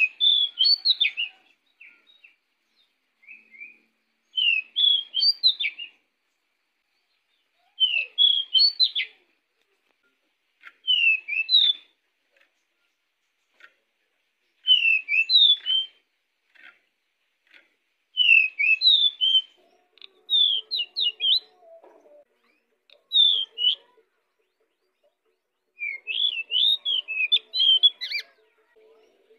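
Pied bushchat (decu) singing in full voice: about nine short phrases of quick, high chirping and warbling notes, each a second or so long and repeated every few seconds. A faint low hum runs under the later phrases.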